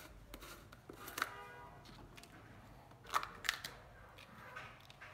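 Small plastic paint jar being handled and its screw lid opened: a few light plastic clicks and knocks, with a brief squeak about a second in and the loudest two clicks close together about three seconds in.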